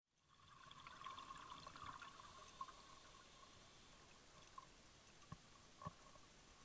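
Near silence underwater: a faint hiss with light crackling, and a few soft clicks in the second half.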